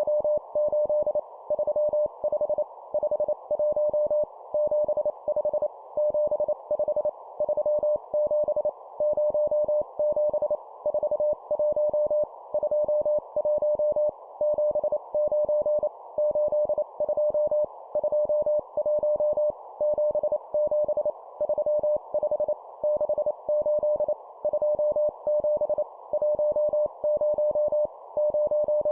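Morse code sent at 25 words per minute as number groups: a single steady tone of about 600 Hz keyed on and off in dots and dashes, over a band of hiss like a CW receiver's filtered noise.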